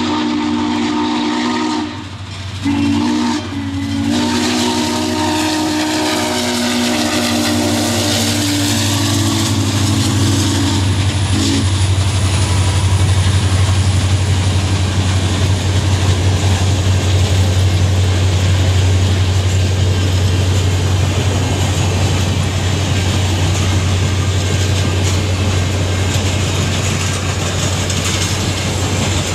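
Norfolk & Western 611's steam whistle blowing a long chord of several steady notes, broken once about two seconds in and stopping about twelve seconds in. After that the train runs past with a steady rolling rumble from the locomotive and passenger cars.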